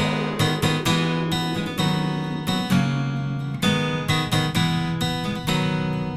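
Music: acoustic guitar strummed and plucked in a steady rhythm of sharp, ringing chords.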